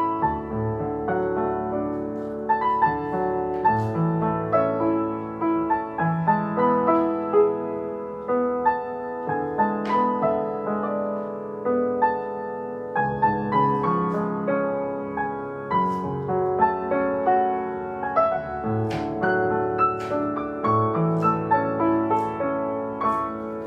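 Solo piano music with a gentle melody of held notes, fading slightly near the end.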